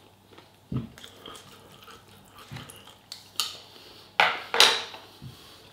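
Someone eating at a table: quiet chewing broken by a few sharp clinks and knocks of tableware on a plate, the loudest a short clattering burst about four seconds in.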